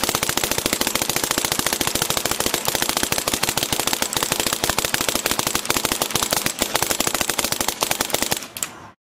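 Angel A1 Fly electronic paintball marker firing a rapid, continuous stream of shots. The fire cuts off suddenly near the end.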